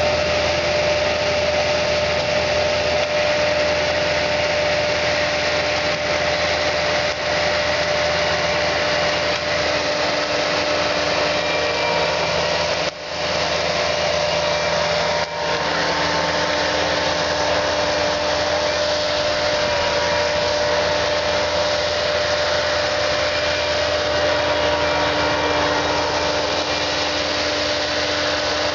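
Bobcat S630 skid-steer's diesel engine running steadily under load as it powers the hydraulic tree spade digging out and lifting a tree, with a steady whine over the engine. The low tones of the engine shift slightly about halfway through.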